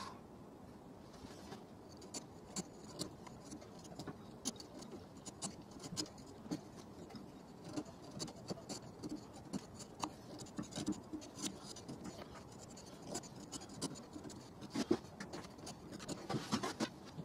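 A wide chisel pared by hand across the bowl of a wooden spoon, making quiet, short, irregular scraping cuts and ticks, several a second.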